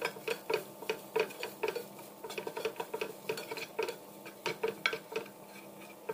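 Wooden spatula scraping and knocking against a nonstick frying pan in quick, even strokes, about two or three a second, stirring onions, green chillies and spices as they are sautéed.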